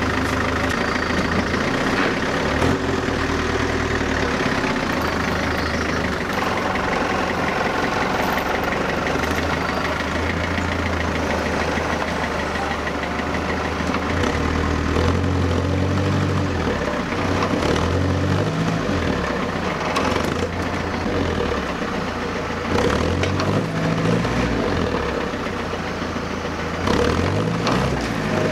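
Tow vehicle's engine running under load as it pulls a dead Land Rover Series 3 on a tow strap. It holds steady at first, then revs up and down several times in the second half.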